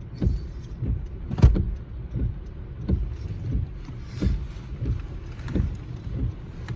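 Inside a car's cabin while driving in the rain: a steady low rumble with a run of soft low thumps about every half second or so.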